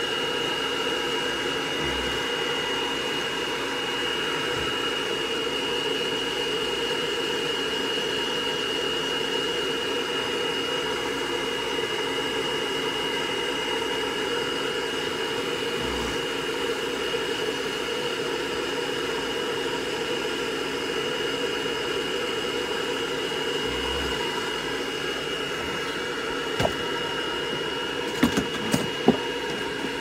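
Hair dryer blowing steadily, a constant rushing noise with a high whine. A few sharp knocks and clicks near the end.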